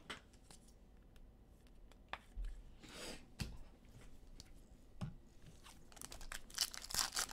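Trading card packs being handled and torn open: quiet scattered clicks and rustles, then a denser run of tearing and crinkling of the wrapper about six seconds in.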